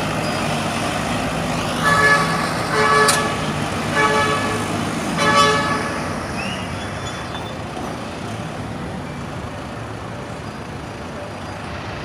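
A vehicle horn honks four short times, about a second apart, over the steady sound of passing road traffic.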